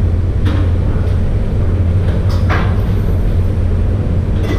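Eatery background noise: a steady low hum with three short clatters about two seconds apart.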